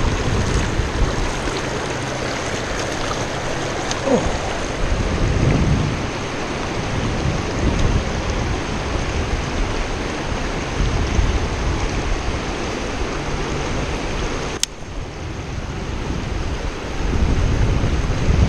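Shallow river rapids rushing steadily around the wading angler's legs, with uneven low rumbling underneath. A single sharp click comes about fourteen and a half seconds in.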